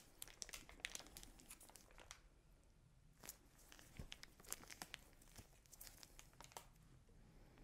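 Faint crinkling of a plastic disposable piping bag being squeezed in the hands as buttercream is piped, a scatter of small irregular crackles.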